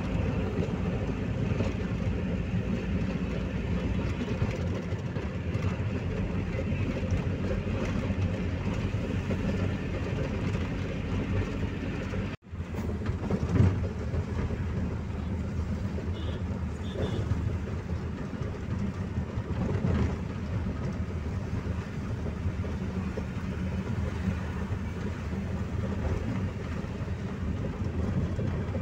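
Steady road and engine rumble heard from inside a moving car's cabin. The sound cuts out for an instant about twelve seconds in, and a short, louder knock follows about a second later.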